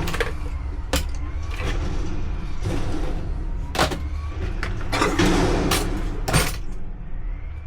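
Hand tools clanking and knocking as they are gathered up, several sharp knocks and a longer rattle about two-thirds through, over a steady low rumble.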